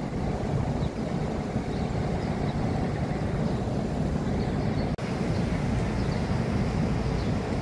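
Steady city street traffic noise, a low rumble of passing vehicles, with a momentary dropout about five seconds in.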